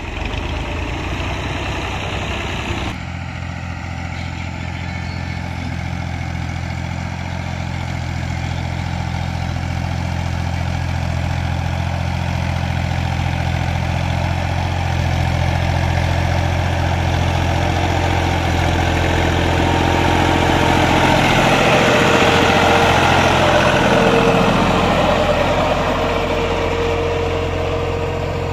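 Fiat 480 tractor's three-cylinder diesel engine running steadily under load as its blade pushes soil. It grows louder as the tractor comes near, loudest a little past two-thirds of the way through, then eases off slightly.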